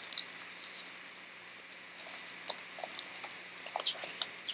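Trading card pack wrapper crinkling as it is torn open, a dense run of small, sharp crackles from about two seconds in.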